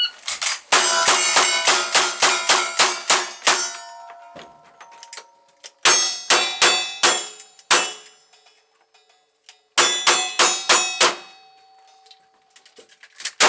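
A shot-timer beep, then three strings of rapid gunshots with steel targets clanging and ringing after the hits: a long string of about ten shots, then two shorter strings with pauses between.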